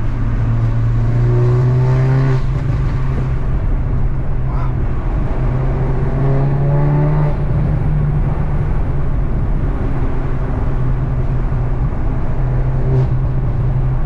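Audi S3 (8Y) 2.0-litre turbocharged four-cylinder with a catless 4-inch downpipe, heard from the cabin with the window down while cruising: a steady low exhaust hum with road and wind noise. Twice the engine pulls harder and the tone rises, dropping back just after two seconds and again after about seven seconds.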